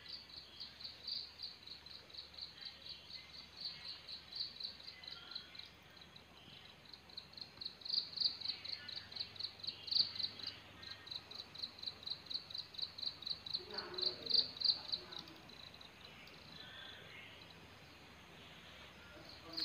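A cricket chirping in a steady, high-pitched pulse of about four chirps a second, which stops about three-quarters of the way through.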